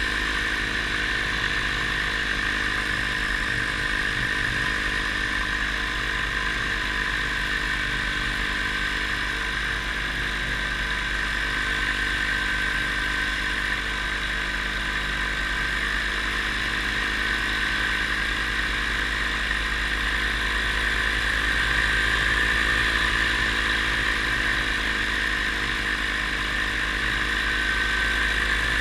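Paramotor engine and propeller running steadily in flight, a constant drone that grows slightly louder about two-thirds of the way through.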